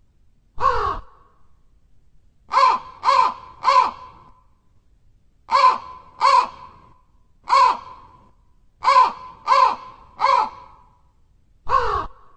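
A crow cawing: about eleven short caws, some single and some in quick runs of two or three.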